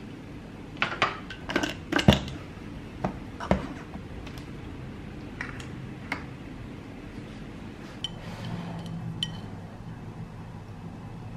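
Knocks and clicks of a personal blender cup and its lid being handled on a table: a quick run of sharp knocks in the first few seconds, the loudest about two seconds in, then a few lighter clicks as the drinking lid and straw go on.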